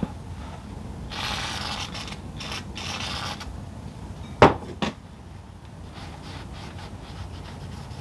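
A WD-40 aerosol can spraying in a few short hisses, followed a second or so later by two sharp clicks close together.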